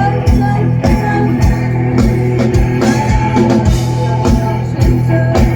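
A junior high school rock band playing live: organ-like keyboard chords and electric guitar over a steady drum beat of about two kicks a second.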